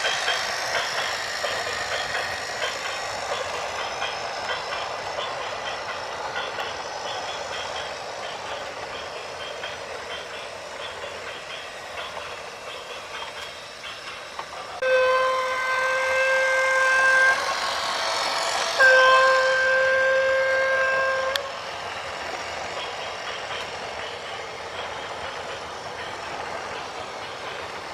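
Two long horn blasts of one steady pitch, each about two and a half seconds, separated by a short gap, over a continuous rolling rush of vehicle noise.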